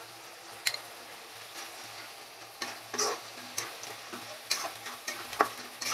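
Spice pastes gently sizzling in hot oil in a karahi. From about two and a half seconds in, a metal spatula stirs them, scraping and clicking against the pan about twice a second.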